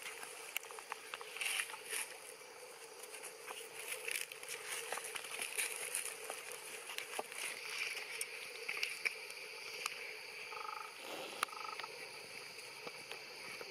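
Outdoor ambience of steady insect chirping over a low hum, with scattered faint clicks and rustles and a brief two-note squeak about eleven seconds in.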